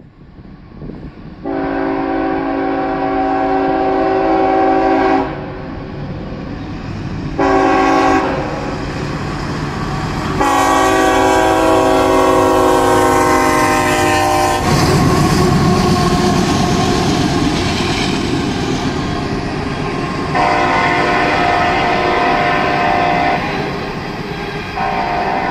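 Freight locomotive air horn sounding five blasts of different lengths, the longest about four seconds, each a chord of several notes at once. Under the blasts runs the steady rumble of the moving train, which grows heavier about halfway through.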